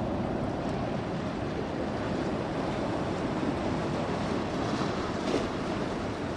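Ocean waves and surf washing through an inlet, with wind buffeting the microphone: a steady rushing noise that briefly swells a little past five seconds in.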